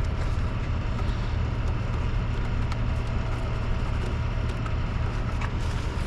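A vehicle engine idling with a steady low rumble, a few faint clicks over it.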